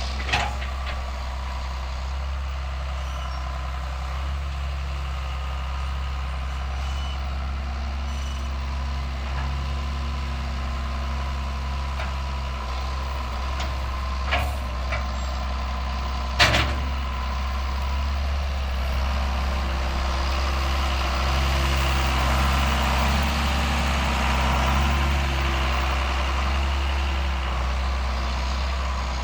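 John Deere 7610 tractor's diesel engine running steadily under work, louder for a stretch in the second half. A few short sharp knocks stand out, the loudest a little past the middle.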